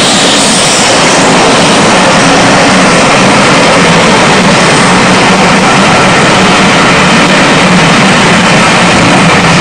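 A steam-hauled train of passenger coaches rolling past at close range: a loud, steady roar of wheels on rail, mixed with the exhaust of the LMS Princess Coronation Class Pacific locomotive 6233 pulling away with its train.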